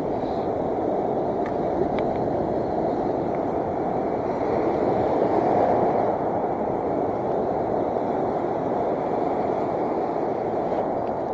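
Steady rushing of wind on the microphone mixed with the wash of heavy surf on the beach, swelling briefly about halfway through.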